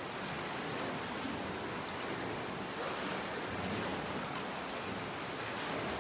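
Water splashing and lapping steadily around a small rowing boat as it is rowed with a pair of oars.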